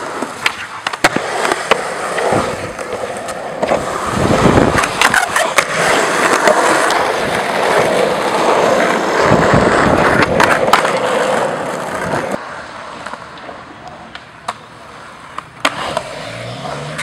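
Skateboard wheels rolling on concrete and asphalt, with sharp clacks of boards popping and landing. The rolling is louder through the middle, then drops suddenly to a quieter level about twelve seconds in.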